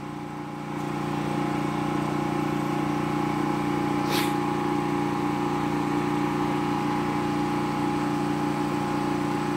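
Small electric water pump running with a steady hum, pumping water up into rooftop storage barrels that are still filling.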